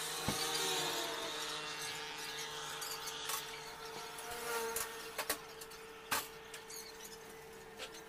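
Rope being pulled and worked over a truck's tarpaulin cover, with scraping and faint squeaks and a few sharp knocks, over a steady mechanical hum.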